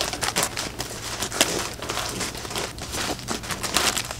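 Plastic bag of wrapped chocolates crinkling as it is handled and individually wrapped sweets are pulled out, a run of irregular sharp crackles.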